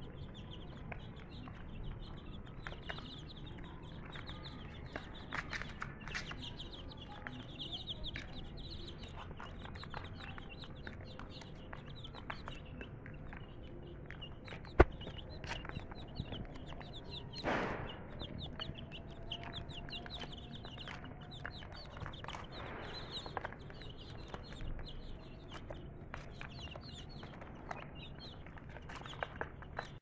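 A flock of young domestic chicks peeping constantly in quick, high-pitched cheeps while they peck at feed, with light pecking taps throughout. A single sharp knock about fifteen seconds in is the loudest sound.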